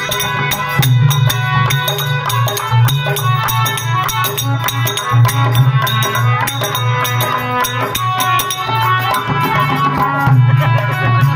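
Live traditional Indian folk music: hand-drum percussion keeping a beat over a steady low drone and held tones.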